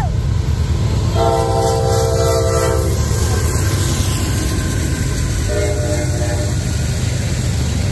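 Freight locomotive air horn sounding a chord of several tones: a long blast about a second in and a shorter, fainter one near the end, over the steady low rumble of the passing train.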